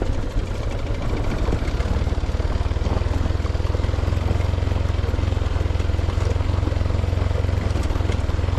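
Motorcycle engine running steadily with an even, low-pitched exhaust beat.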